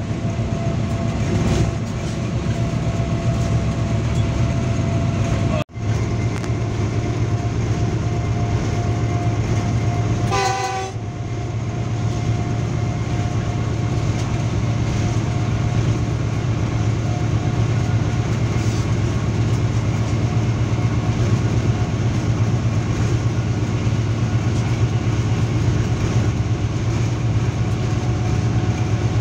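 GE diesel-electric locomotive heard from inside its cab running at speed, a steady engine drone with track rumble and a constant hum. A short horn blast sounds about ten seconds in, and the sound drops out for a moment about six seconds in.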